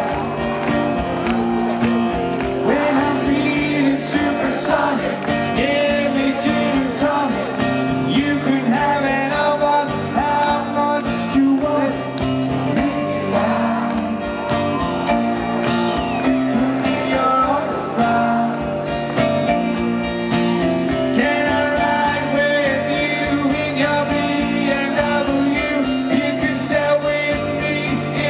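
Rock band playing live, with strummed guitars over a steady rhythm section and a singing voice.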